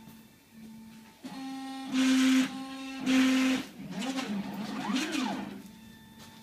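Stepper motors of a CNC plasma/router gantry whining as the machine makes test moves. There are two louder, steady stretches about two and three seconds in, then the pitch rises and falls near five seconds as the axes speed up and slow down.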